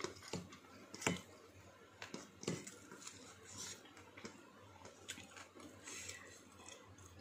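Faint eating sounds of a person eating rice by hand from a stainless steel bowl: chewing and fingers working the food against the bowl, heard as scattered soft clicks and squishes, the sharpest about a second in and again about two and a half seconds in.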